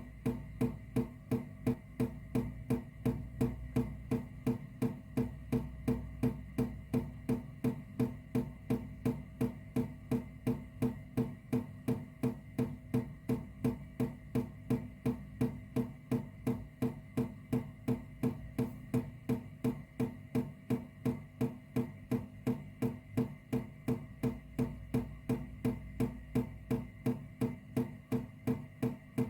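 Water dripping in a steady, even rhythm of about three drops a second, each drop a short, sharp plink.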